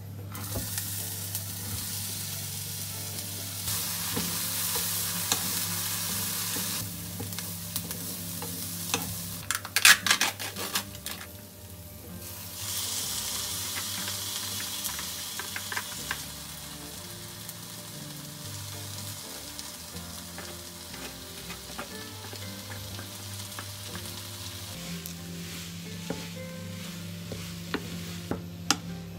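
Diced onion and green pepper sizzling in hot sesame oil in a nonstick frying pan as they are stir-fried with a wooden spatula. A short run of loud knocks comes about ten seconds in, and the sizzle is softer in the second half.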